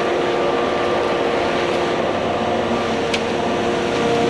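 Concrete pump truck running steadily while pumping, its engine and hydraulics giving an even mechanical drone with a held whine.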